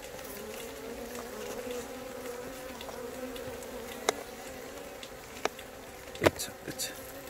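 Honeybees buzzing steadily around an open hive, a continuous hum. A few sharp knocks cut through it, the loudest about six seconds in.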